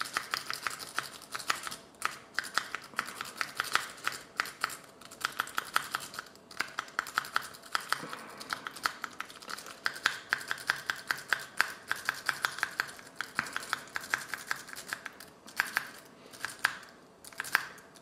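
A Law Lock Tools Nessie rake pick scraped in and out of a Squire No. 39 padlock's keyway under tension, rattling over the pin tumblers in rapid clicks, several a second, with a couple of brief pauses. The lock does not give and resists the raking.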